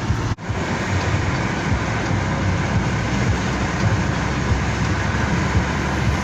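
Steady low rumble and road noise of a moving car, heard from inside the cabin.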